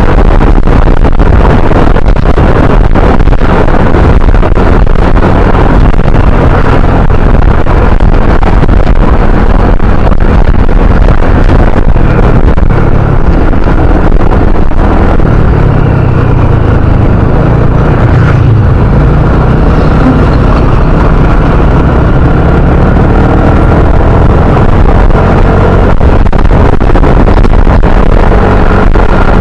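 Motor scooter engine running under way, with a steady rush of wind on the microphone. About halfway through the engine note drops and then climbs again as the scooter slows and picks up speed.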